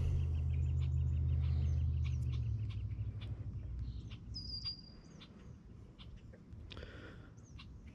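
Small birds chirping and calling around a pond, with a short high whistled note a little over four seconds in. A low rumble fades out about two and a half seconds in.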